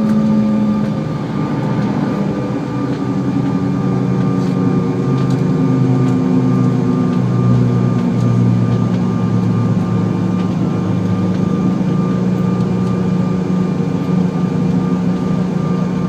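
Cabin noise of a CRJ-900 jet on the ground after landing: the rear-mounted GE CF34 turbofans give a steady drone with several humming tones that shift in pitch a few times as the aircraft slows.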